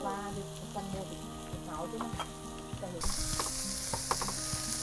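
Meat sizzling on a tabletop barbecue grill, the hiss growing louder about three seconds in, with a few light clicks of chopsticks and utensils.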